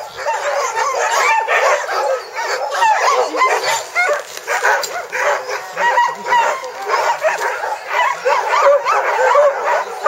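A pack of sled dogs yipping, barking and whining all at once in a constant, overlapping din.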